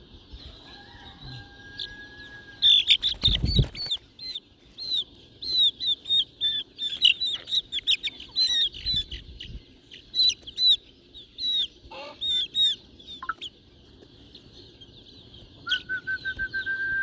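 Young chicks peeping, a dense run of short, high chirps. A loud bump sounds about three seconds in.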